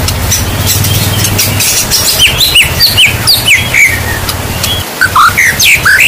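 Heavy rain falling steadily, with a low rumble under the hiss. Over it a songbird sings a quick run of short whistled notes from about two to four seconds in, and a few more near the end.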